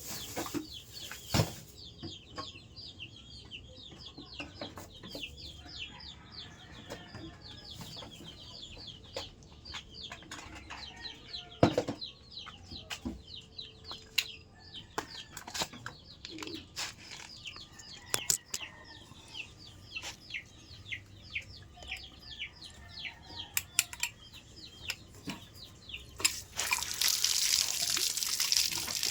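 Birds chirping rapidly and steadily in short high notes, with a few sharp knocks; about 26 seconds in, water starts gushing out of the water line under repair.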